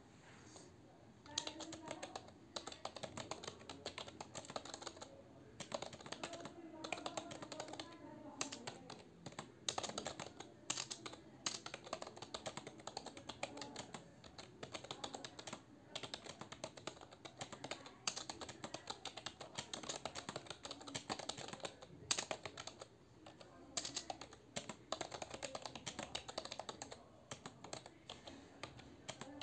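Typing on a computer keyboard at a steady, unhurried pace: fast runs of key clicks starting about a second in, broken by short pauses.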